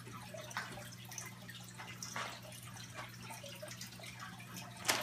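Aquarium water trickling and dripping, with scattered small splashes over a steady low electrical hum. A sharp, louder knock comes at the very end.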